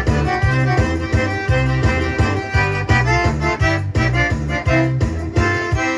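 Accordion-led rancheira, a gaúcha dance tune, played live with a steady pulsing bass beat, settling onto a held final chord near the end.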